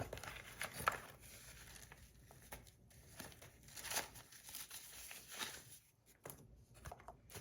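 Small plastic bag crinkling and rustling, with scattered light clicks, as brass fidget-spinner buttons are handled and taken out.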